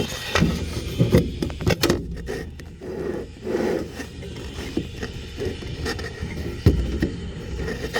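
Handling noise as a phone is fitted onto a toy helicopter: irregular scraping, rubbing and knocking, with a sharp knock near the end.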